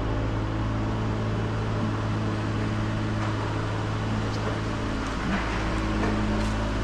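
A steady low machine hum with a few steady tones over it, and some faint light ticks partway through.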